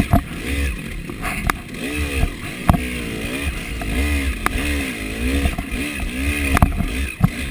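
KTM 300 two-stroke dirt bike engine revving up and falling off over and over, about once a second, as it is ridden along a rough trail, with a few sharp knocks from the bike hitting bumps.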